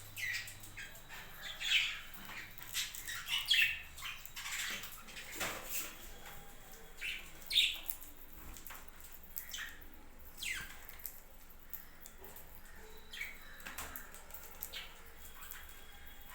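Budgerigars chirping and squawking: many short, overlapping calls, busiest and loudest in the first half.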